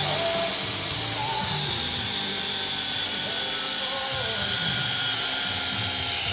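Cordless drill running steadily under load as it spins the oil pump of a rebuilt Chrysler 318 marine V8 to prime the oil system, a high whine that dips slightly about a second and a half in as oil pressure builds.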